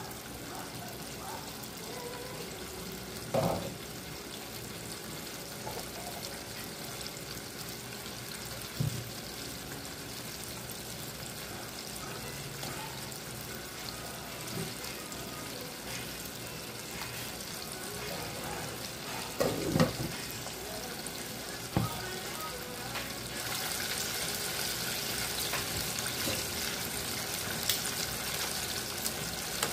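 Chicken wings deep-frying in a pot of oil: a steady sizzle broken by a few short knocks. A little over twenty seconds in the sizzle gets louder and hissier as the wings go into the oil.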